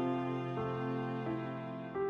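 Soft background music: slow, held notes that change every half second or so over a steady low tone.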